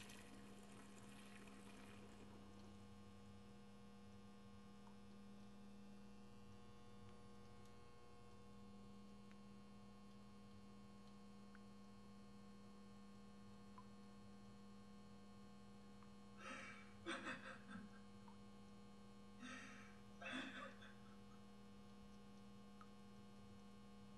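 Faint, steady electrical hum. About two-thirds of the way through come two short sounds, about three seconds apart.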